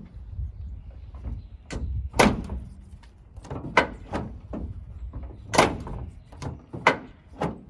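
Toyota Tundra tailgate latch and handle being tried out: a series of sharp clunks and clicks, about five loud ones, as the latch releases and the tailgate is shut and latched again.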